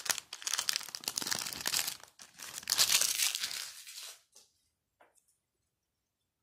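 Foil wrapper of a Match Attax trading-card booster pack being torn open and crinkled by hand. It stops about four seconds in, leaving a few faint rustles.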